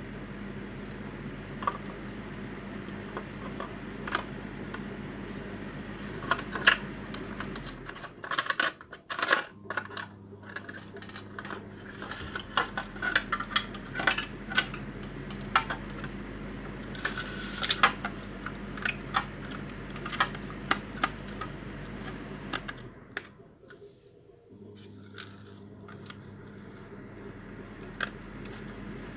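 Plastic parts of a disassembled hand mixer clicking and clattering as its housing and gear pieces are handled, with scattered sharp knocks, over a steady low hum that drops out twice.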